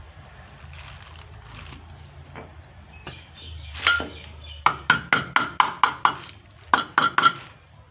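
Sharp metallic taps on the kitchen chimney hood motor's parts, about a dozen in two quick runs of roughly three a second, each with a short ring. They follow a single clunk about four seconds in.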